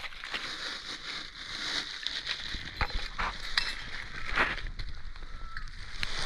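Crackling and crunching with a few sharp clicks about midway, over a faint steady high hiss.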